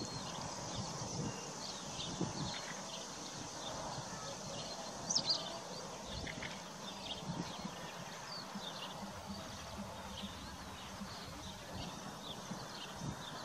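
Horses grazing close by: grass tearing and chewing, with scattered soft thuds of shifting hooves and faint short high chirps throughout. A brief sharp double sound stands out about five seconds in.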